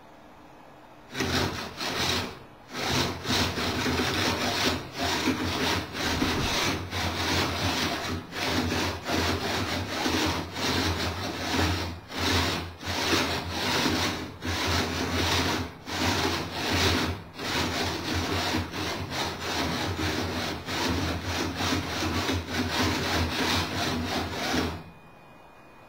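A test-rig robot's pair of motor-driven kite-line winches running in short back-and-forth spells as they reel line in and out, replaying a stored kite-flying pattern: a rough, rasping mechanical whirr over a low hum, with frequent brief stops. It starts about a second in and cuts off shortly before the end.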